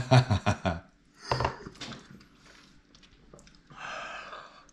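A man gulping water in quick throaty swallows, then gagging with a short throaty burst as he struggles to force down a mouthful of chocolate egg. Near the end comes a harsh open-mouthed breath out.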